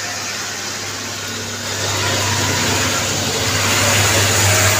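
Heavy truck's diesel engine running and its tyres hissing on a rain-soaked road, growing louder from about two seconds in as it draws near, over heavy rain.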